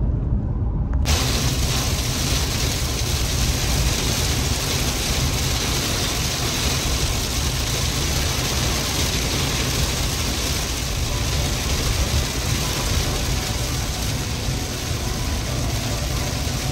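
Car cabin noise while driving: a low rumble of engine and tyres. About a second in, an even hiss suddenly joins it, heavy rain hitting the car and tyres on a wet road.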